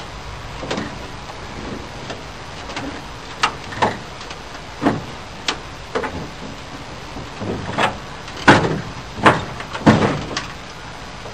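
Irregular metallic knocks and clanks from the sheet metal of an old pickup truck's cab and door being worked on by hand, about a dozen in all, the loudest three coming close together near the end.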